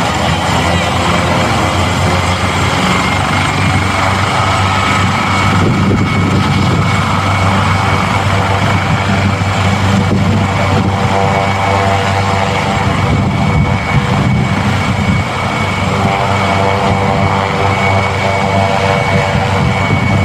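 Twin-turbine AgustaWestland AW139 air ambulance helicopter running on the ground with its rotors turning: a loud, steady turbine whine over the beat of the rotors.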